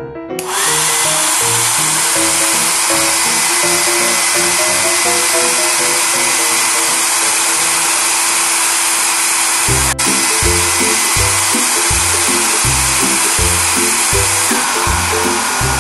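Toy hair dryer running, a loud steady blowing with a high motor whine that drops slightly in pitch near the end, over background music; it starts just after the beginning and cuts off at the end.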